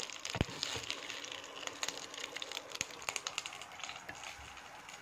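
Hot oil crackling and sizzling in a tawa under pieces of shallow-fried chicken, with a wooden spatula scraping and knocking as the pieces are lifted out; one soft knock about half a second in.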